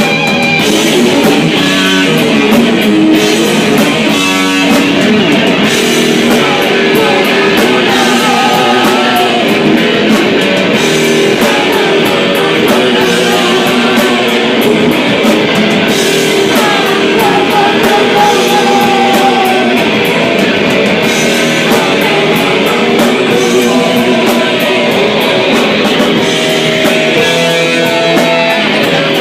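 Rock song played live on guitar and drum kit, with singing.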